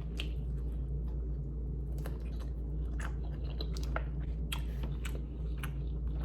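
A person chewing food close to the microphone, with irregular wet clicks and smacks of the mouth, over a steady low hum.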